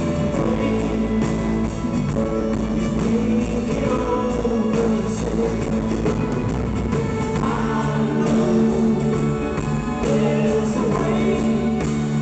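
Live acoustic band music: strummed guitars playing on steadily, with some singing over them.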